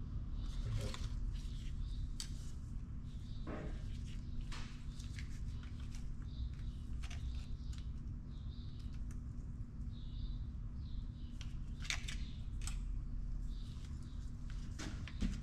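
Scattered light metallic clicks and scrapes of a long screwdriver working the valve gear of a Detroit Diesel 2-53 cylinder head, fitting the spring clips on the cam follower springs. A steady low hum runs underneath.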